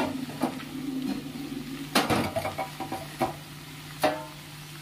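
Spoon knocking and scraping in a cooking pan as fried potatoes are stirred into okra, with several sharp clinks, the loudest about two seconds in, over a steady low hum.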